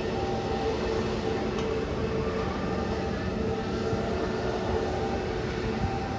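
Jet engines of a taxiing Airbus A320-family airliner at low power: a steady rumble and hiss with a faint wavering hum.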